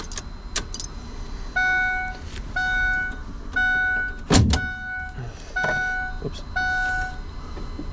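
A vehicle warning chime beeping steadily, about once a second, six times. A loud thunk comes about halfway through, with a few lighter knocks around it.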